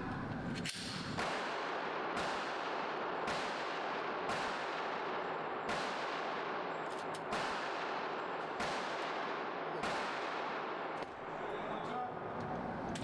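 Pistol shots from neighbouring lanes of an indoor range, about one a second at an uneven pace. Each shot is followed by a long echo off the range walls.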